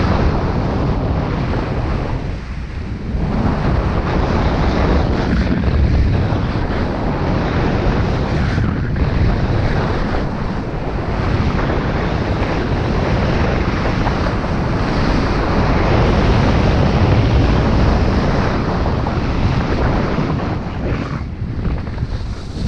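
Wind rushing over the microphone of a skier's action camera during a fast downhill run, mixed with the skis scraping over packed snow. It eases briefly about two seconds in and again near the end as the skier slows.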